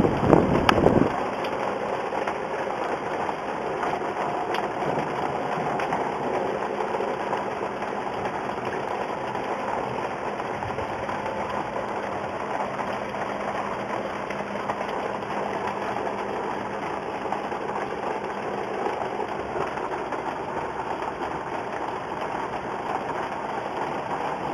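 Steady hiss of a storm downpour falling on surfaces, with a faint steady hum under it. A louder rush of noise cuts off about a second in.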